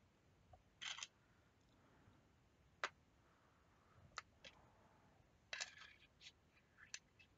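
Quiet handling noise: a handful of short, sharp clicks and taps, scattered through an otherwise near-silent stretch, as hands move a polymer clay piece and a small metal cutter about on a work surface.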